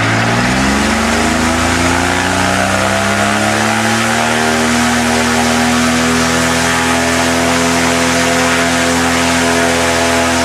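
A 1300 cc Suzuki engine drives a propeller through a 3:1 reduction. It revs up over about four seconds, then runs steadily at full throttle in a static thrust test. It is still turning below its best revs because the propeller pitch is too coarse.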